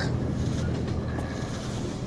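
Film background ambience: a steady low hum under a soft, even wash of noise.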